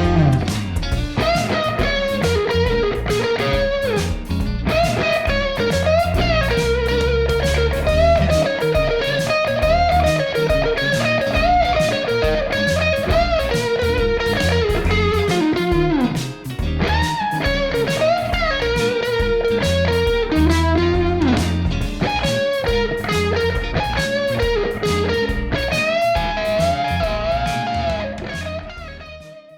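Blues lead played on a Stratocaster electric guitar through a J Rockett Archer Clean Klon-style boost pedal, with bent notes, over a backing track with a steady beat. It fades out near the end.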